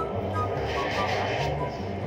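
Background music with a low bass line and short high notes, over the steady running noise of a metro train carriage.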